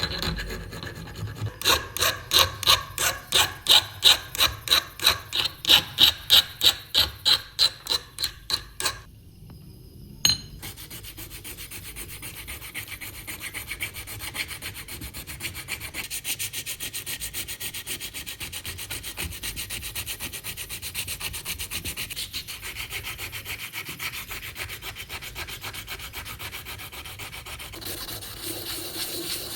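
Hand rubbing with a file or abrasive: about twenty quick, loud back-and-forth strokes. A click comes after about nine seconds, then a quieter, steady rubbing.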